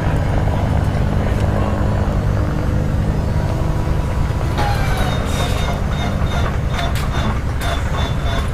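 B-17's newly replaced Wright R-1820 Cyclone radial engine being started. About halfway through, a starter whine comes in and the engine turns over with scattered clicks and pops, not yet firing. A steady low drone runs underneath throughout.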